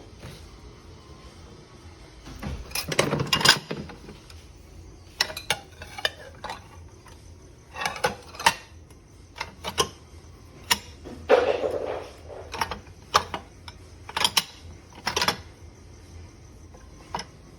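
Dishes and cutlery clinking and clattering as they are handled, in a string of separate knocks. There are longer rattling clatters about three seconds in and again around eleven seconds.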